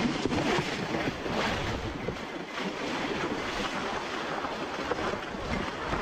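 Shallow mountain stream rushing over stones in a riffle, a steady wash of water, with low rumble of wind on the microphone during the first couple of seconds.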